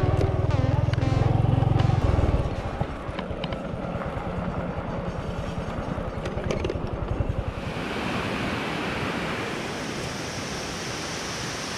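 Small motor scooter's engine running with an even low pulse as it rides along a rutted dirt track, then, about eight seconds in, the steady rush of a swollen, muddy river pouring over a concrete slope.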